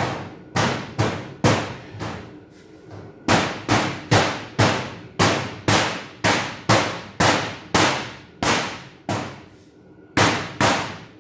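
Parts of a Kobalt cabinet being knocked into place by hand: about twenty sharp knocks, each ringing briefly, in runs of roughly two a second. The knocks pause for about two seconds a second and a half in, and again near the end.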